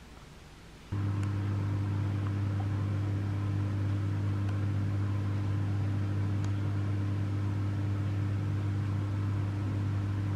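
A steady low mechanical hum, like a motor or electrical appliance running, starts abruptly about a second in and holds at one pitch.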